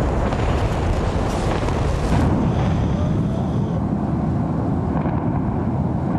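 Loud, continuous deep rumbling noise, with a faint high whine over it for about a second in the middle.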